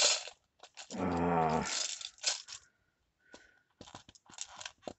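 Small decorative storage tins being handled and prised at, which are hard to open: a sharp click at the start, then scattered small clicks and scrapes. A brief pitched sound about a second in is the loudest part.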